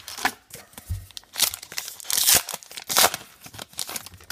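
Foil wrapper of a Topps Star Wars Evolution trading-card pack being torn open and crinkled by hand. There are several loud crinkling tears, the loudest about two to three seconds in.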